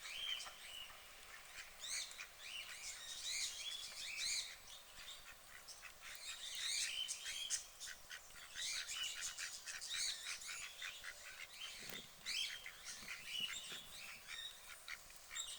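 Birds chirping, many short high calls overlapping throughout, with a brief low thud about twelve seconds in.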